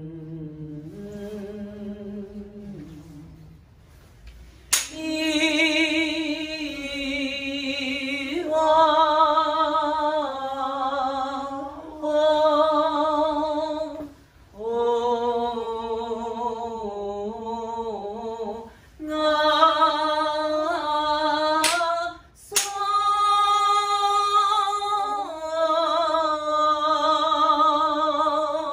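A woman singing a shirabyoshi song solo, in long held notes with a wavering vibrato that step from pitch to pitch every few seconds; it starts low and soft and grows louder about five seconds in. A few sharp knocks cut in, one about five seconds in and two close together about three-quarters through.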